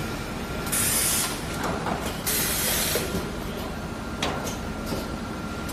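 ECO-2L two-cavity linear PET blow moulding machine running: loud bursts of compressed-air hiss about a second in and again near the middle, with a shorter one later, over a steady machine noise with a faint constant whine.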